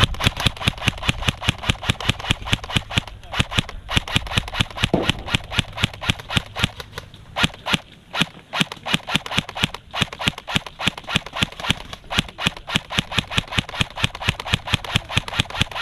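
Airsoft guns firing a long run of rapid shots, several a second, with a few short pauses.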